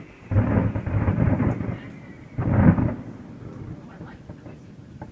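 Aerial fireworks shells bursting overhead: a long rumbling run of booms starting about a third of a second in, then another loud boom at about two and a half seconds.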